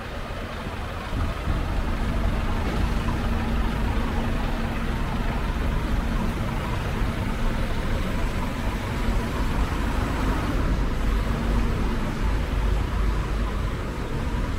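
Heavy truck's engine running close by, a steady low hum over a rumble of street traffic; it grows louder about a second in.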